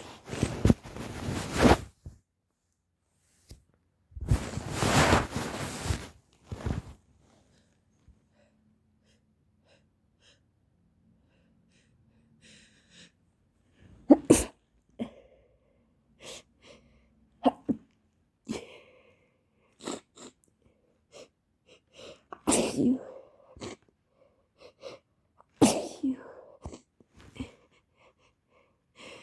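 A person with a stuffy head cold sneezing repeatedly into a handkerchief during a sneezing fit. Two long noisy bursts come in the first six seconds, then sharp sneezes about halfway through and twice near the end, with small soft rustles between.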